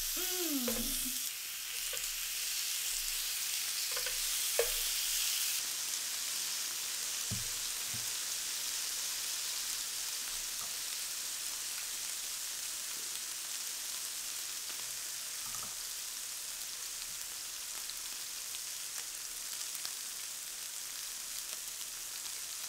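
Thin slices of meat sizzling steadily on a round tabletop grill, a high frying hiss that is stronger for the first five seconds or so after slices are laid on, then settles. A single sharp click about four and a half seconds in.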